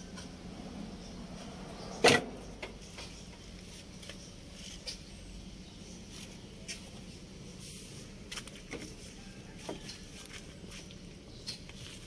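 A single sharp knock about two seconds in, then scattered light clicks and taps over a faint steady low hum.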